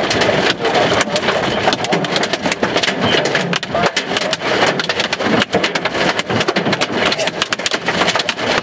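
Heavy hail pelting down: a dense, continuous clatter of many rapid, irregular hailstone strikes over a steady rushing noise.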